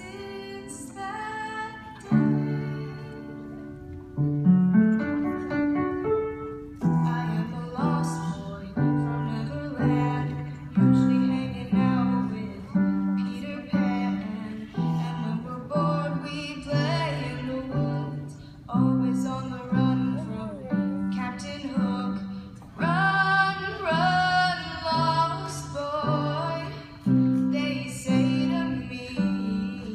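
A woman singing a slow song over instrumental accompaniment that repeats a steady pattern of low chords.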